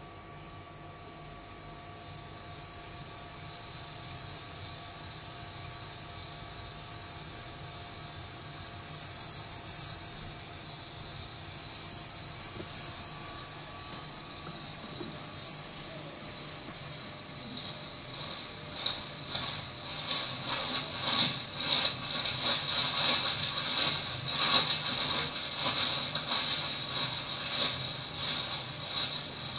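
Crickets chirping in a dense, steady chorus, with a higher trill that starts and stops every few seconds.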